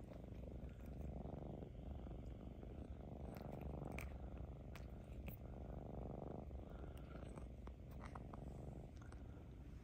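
Ragdoll cat purring continuously, swelling and easing in stretches of a second or so with its breathing, with a few faint clicks.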